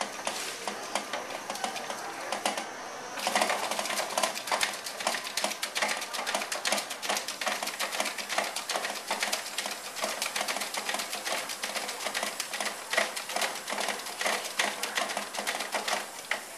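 Hobart commercial stand mixer running, its beater working ground sausage meat in the steel bowl with a fast, continuous rattling clatter. About three seconds in it steps up from its lowest speed and gets louder.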